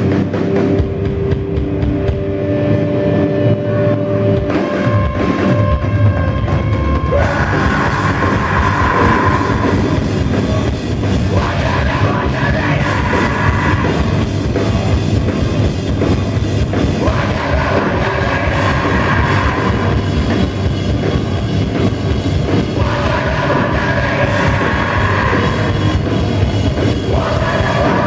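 Live heavy rock band playing loud with distorted electric guitars, bass and drum kit. Held guitar notes ring over the drums at first, and the full band comes in heavier about seven seconds in.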